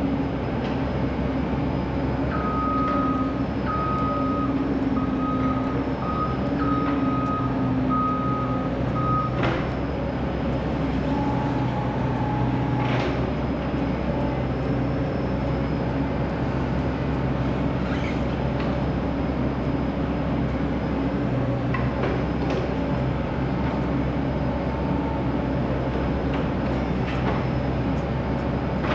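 Diesel engine of a Caterpillar 308D mini excavator running steadily, its travel alarm beeping on and off for about seven seconds starting about two seconds in. A few sharp metal clanks come through later.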